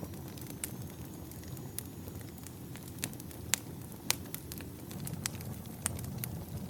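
Campfire of burning firewood logs crackling: sharp, irregular pops and snaps over a low, steady rumble of the flames, with the loudest pops in the middle.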